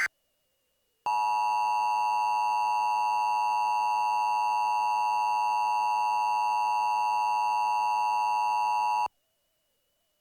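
Emergency Alert System attention signal: a steady electronic two-tone alert sound, starting about a second in and cutting off abruptly after about eight seconds.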